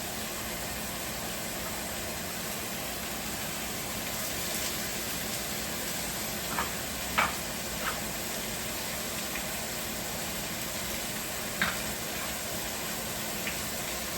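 Chopped onions sizzling as they fry in melted butter in a pan: a steady hiss, with a few short clicks from the middle of the stretch onward.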